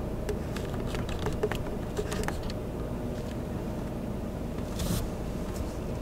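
Car interior noise while creeping along a wet street: a steady low rumble of engine and tyres, with scattered light clicks over the first couple of seconds and a brief hiss about five seconds in.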